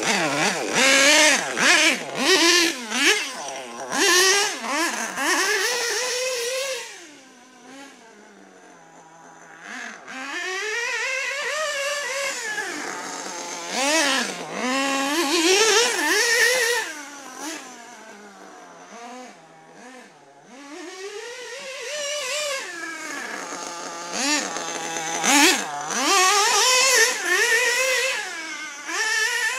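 CRE-tuned Novarossi 528 nitro engine in a Hyper 9 RC buggy, revving up and down over and over as the buggy drives, its high pitch climbing and dropping every second or two. It goes quieter from about seven to ten seconds in and again around eighteen to twenty seconds, then comes back loud.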